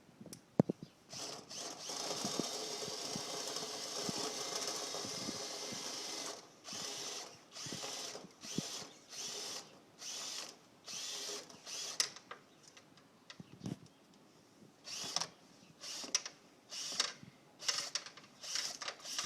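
Power drill spinning a rotary dryer-vent cleaning brush, run steadily for about five seconds and then pulsed in a series of short bursts.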